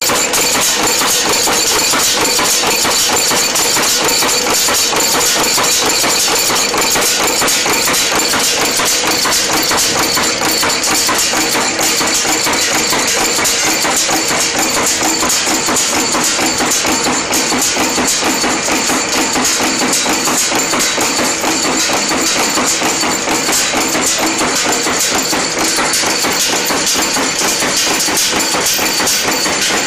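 N-6 wire nail making machine running, its punch and cutters striking the wire in a rapid, steady clatter of hammering strokes as it heads and cuts nails.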